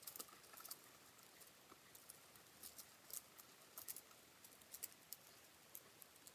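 Faint, irregular small clicks and light rustling of bead-threaded wire being handled and wrapped around a rope.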